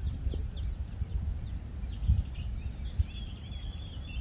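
Birds chirping with many quick high calls, one of them holding a steady high note through the second half, over a low rumble with a couple of dull thumps.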